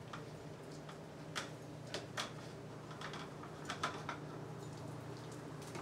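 Block of cheese grated by hand on a metal grater: short, sharp scraping strokes at irregular intervals, with a steady low hum underneath.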